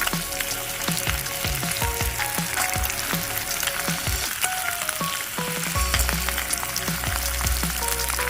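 Pork belly sizzling and crackling as it fries, a dense steady spitting with many small pops.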